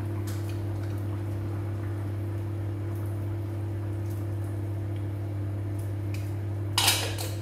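Steady low hum with faint kitchen sounds, and one brief clatter of a utensil against the cooking pan near the end.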